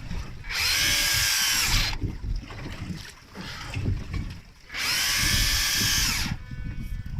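Electric deep-drop fishing reel winding line in two bursts of about a second and a half each. The motor whines up to speed and runs down again each time as a fish is hauled up from depth. A steady low rumble of the boat and wind runs underneath.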